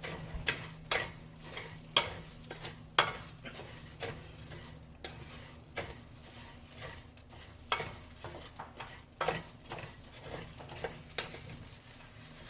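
Raw rice and chopped onion frying in oil in a pot, browning before the liquid is added: a soft sizzle, with a stirring utensil scraping and knocking against the pot a few times a second.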